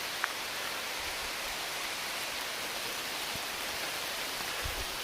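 Steady rain falling, an even hiss with no break, with one short click about a quarter second in.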